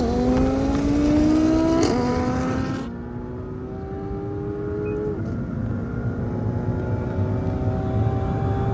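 McLaren 720S twin-turbo V8 at full throttle, heard from inside the car, accelerating hard through the gears. The pitch climbs steadily and drops at upshifts about two and five seconds in.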